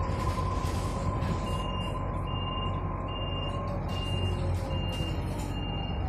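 Inside a bus: a steady low hum and rumble with a high whine that sinks slightly in pitch near the end, and a faint high beep repeating about once a second from about a second and a half in.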